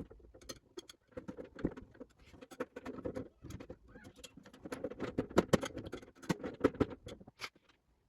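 Light, irregular clicking, tapping and scratching of small hard parts being handled, typical of hands working on computer components and a case.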